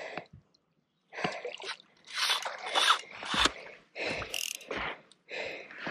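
Irregular splashing at the water's surface as a hooked bass is landed at the side of a fishing boat, with a few dull thumps in the middle.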